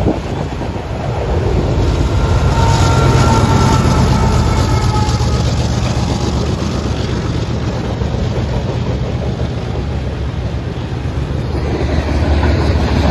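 Freight train passing close by: a steady rumble and clatter of railcar wheels on the rails, with a brief faint high wheel squeal a few seconds in. About halfway through, a mid-train GE diesel locomotive (distributed power unit) goes by, adding its engine drone. The clatter picks up again near the end as covered hoppers pass.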